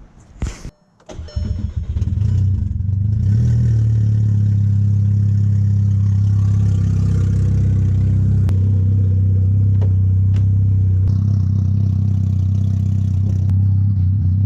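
Volkswagen MK6 Golf R's 2.0-litre turbocharged four-cylinder cranking and catching about a second in, flaring up briefly and then settling into a steady idle. The owner hears the idle as not quite smooth, the same rough sound it had before the cam timing repair.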